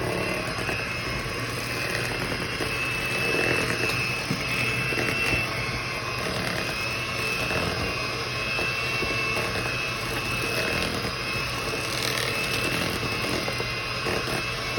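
Electric mixer running steadily with a constant motor whine, beating brownie batter as dry ingredients are mixed in.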